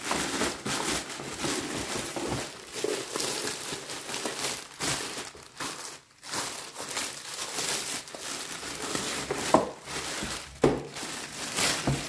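Clear plastic packaging bag crinkling and rustling as a new blender wrapped in it is handled and lifted out of its cardboard box, with two brief sharper sounds near the end.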